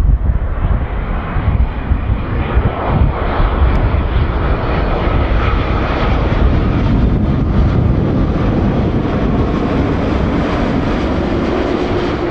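Boeing 787-8 Dreamliner's jet engines on final approach with landing gear down: a steady rushing drone with deep rumble, swelling over the first few seconds, with a faint whine that slowly falls in pitch as the airliner passes.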